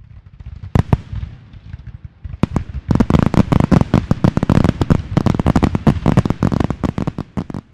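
Fireworks going off: a low rumble with a few sharp bangs, then a dense run of rapid crackling bursts that thins out near the end.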